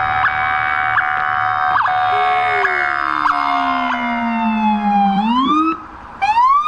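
Police car siren: a steady held tone that slides down in pitch, then, after a brief break, two short rising whoops near the end.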